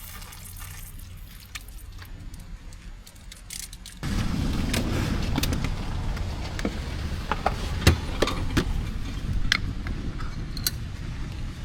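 Vehicle rumble with scattered clicks and knocks, starting suddenly about four seconds in after a quieter stretch of light ticks.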